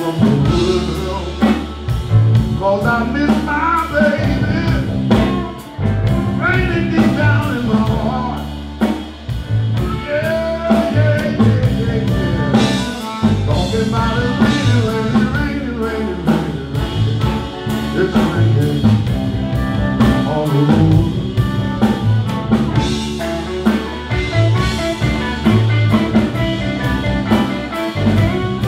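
Live blues band playing: a harmonica cupped against a microphone plays a solo of wavering, bending notes over electric guitar, electric bass and a drum kit keeping a steady beat.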